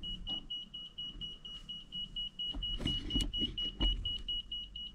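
Handheld EMF meter beeping rapidly and steadily, a high-pitched beep about five times a second, its alarm for a high electromagnetic reading. There is some rustling and knocking of handling about halfway through.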